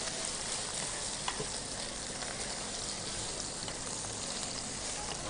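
Pork tenderloin sizzling steadily in melted butter in a stainless steel frying pan, with a few faint clicks as a metal spoon bastes the meat with the hot butter.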